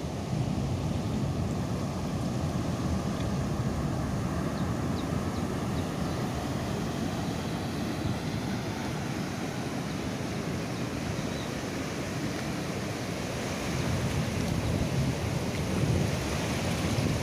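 Ocean surf breaking and washing over the shore in a steady rush, with wind buffeting the microphone. It grows louder over the last few seconds.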